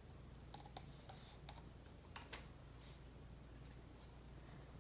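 Near silence: room tone with a few faint light clicks and one soft brush of noise, from plastic cups being handled while resin is poured from one cup into another.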